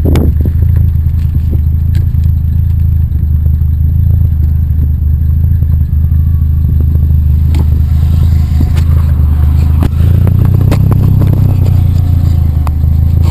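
Heavy wind buffeting on a GoPro HD HERO2's housing on a car moving at speed, a loud, steady low rumble with scattered clicks and rattles, and a slight rise about ten seconds in.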